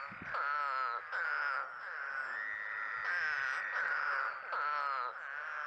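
Eastern spadefoot toads calling: a run of short, pitched "burr" calls, several overlapping, some falling in pitch.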